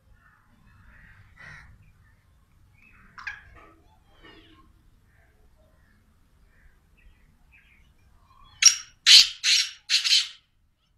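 Caged black francolin calling: four loud, harsh notes in quick succession near the end, after fainter scattered notes earlier on.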